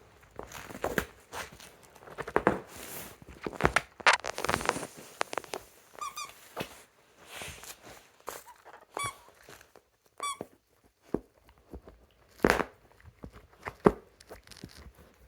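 Dog's squeaky toy squeaked in short bursts, three times in the middle, among rustling, crinkling and knocks as the dog paws and mouths his toys.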